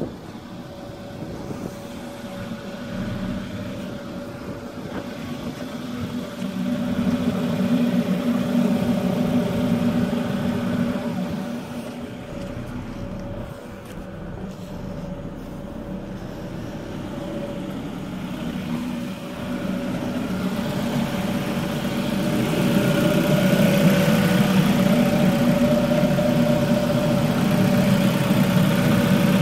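Ford Focus engine running at idle, a steady hum with a constant high whine over it, louder in the middle and again over the last third.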